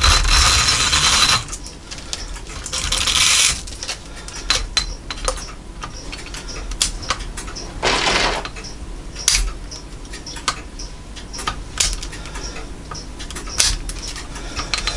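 Brass longcase clock movement being worked with a screwdriver at the winding barrel's click and ratchet while the gut line is pulled off the barrel: two bursts of rapid metallic rattling in the first few seconds, then scattered sharp metal clicks and a short scrape about eight seconds in.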